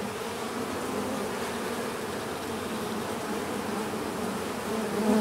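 Many honeybees buzzing steadily in flight all at once. One buzz swells louder near the end.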